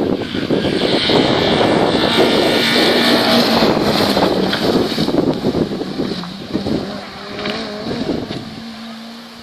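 Rally car going by at speed, its engine note and road noise loud at first, then fading away over the last few seconds as it drives off.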